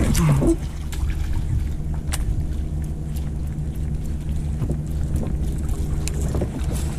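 Boat motor running steadily at low speed, a constant low hum, with a few sharp clicks over it.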